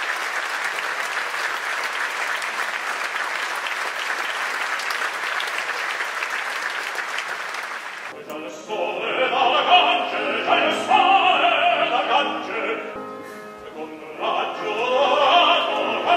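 Audience applauding for about eight seconds. Then a Steinway grand piano starts up and a male operatic tenor sings a classical song with it.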